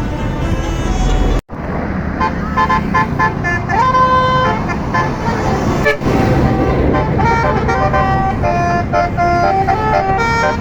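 Basuri telolet bus horn playing a tune of short stepped notes, with one held note that slides up about four seconds in. There is a sudden break about a second and a half in, and voices are heard under it.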